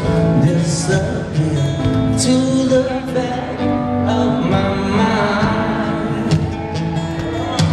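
Live rock band playing in an arena, recorded from the crowd: singing over guitar, steady throughout.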